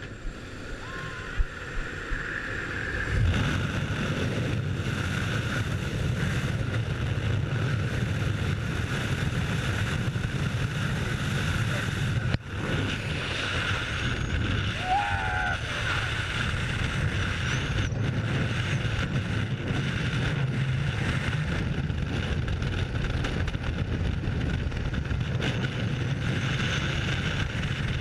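Freefall wind noise: air rushing past a helmet-mounted camera, a steady loud roar that builds over the first three seconds as the jumpers leave the aircraft door.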